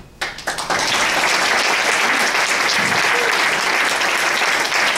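Audience applauding: a few scattered claps, then steady full applause within the first second.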